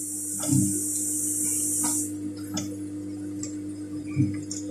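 Steady hum of a Juki industrial sewing machine's motor running while the machine is not stitching, with a few light clicks and two soft knocks as the fabric is handled under the needle.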